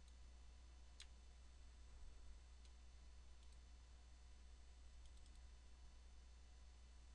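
A few faint computer mouse clicks, the sharpest about a second in, over a steady low hum.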